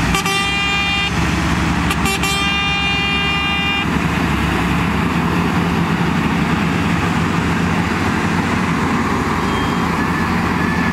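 A vehicle horn blasts twice, a short toot then a longer blast of nearly two seconds. Beneath it, the diesel engines of wheel loaders and a stuck tipper truck run steadily.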